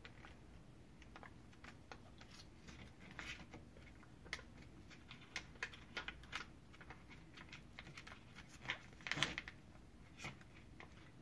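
Foil Capri Sun pouch crinkling and label paper rustling under the hands as a label is wrapped around it and pressed on. It comes as scattered faint crackles and clicks, with the loudest crackle about nine seconds in.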